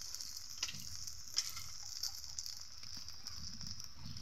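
Jute-leaf fritters (pat shak bora) shallow-frying in oil in an iron karai: a steady sizzle with a few sharp pops in the first two seconds. The fritters are nearly done.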